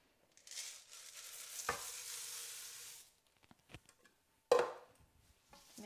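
Dried lentils poured from a jar into a wok of tomato sauce, a rushing hiss for about two and a half seconds. A few light clicks follow, then one sharp knock near the end.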